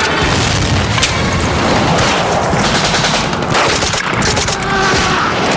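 Continuous battle gunfire: a belt-fed machine gun firing rapid bursts mixed with a fusillade of other shots.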